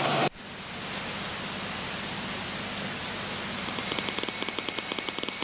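A radio transmission cuts off just after the start. It leaves a steady static hiss on the cockpit intercom, with the taxiing plane's engine pulsing faintly underneath. Faint regular ticking joins about four seconds in.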